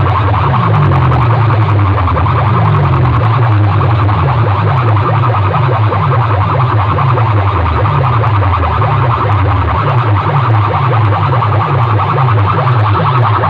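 Very loud DJ dance music blasting from a horn-loudspeaker sound system, driven by bass hits that drop in pitch, about two a second.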